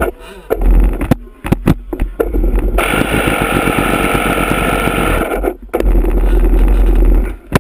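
Electric starter cranking a glow-plug nitro model boat engine: a steady whirr of about three seconds in the middle, with knocks and handling thumps before it and a low rumble after it.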